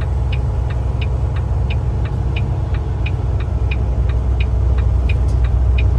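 A car's steady low engine rumble with an even, rapid ticking of about three ticks a second from the turn-signal flasher, as heard inside the car.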